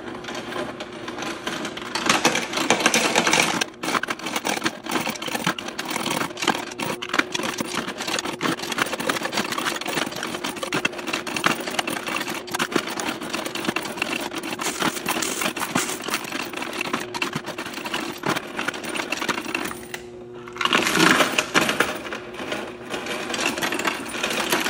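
Cassida C300 coin counter-sorter running: a steady motor hum under a dense, continuous clatter of mixed coins being fed through and dropping into the bins. The clatter eases briefly about 20 seconds in, then comes back louder.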